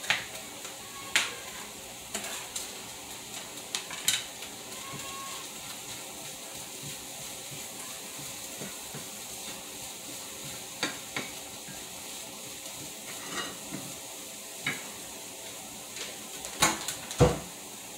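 Small fish and onion frying in a skillet, a steady sizzle. Sharp clicks of a knife on a plastic cutting board in the first seconds, then a spatula knocking in the pan, and a loud thump near the end.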